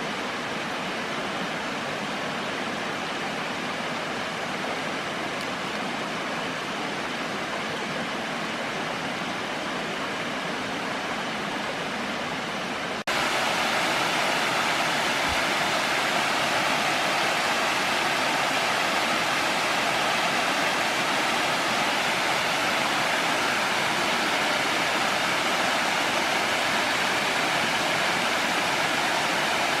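Water rushing steadily down a rocky creek cascade. About thirteen seconds in it jumps abruptly louder and brighter, as if from a spot closer to the falling water.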